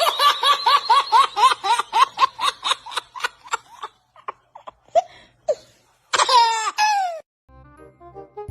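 High-pitched laughter: a rapid run of laughing, about six beats a second, for some four seconds, then a few gasps. Near the end comes one longer falling cry. Music starts just before the end.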